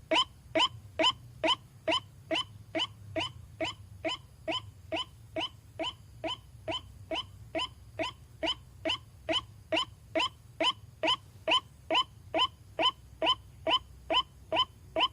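White-breasted waterhen (ruak-ruak) call, as played for a lure, repeated evenly about two and a half times a second, each note a short upward-sweeping cry.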